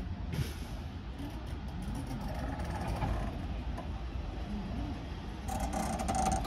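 Steady low rumble of a heritage passenger train at the platform, with faint voices in the background; near the end a brief louder hiss with clicks.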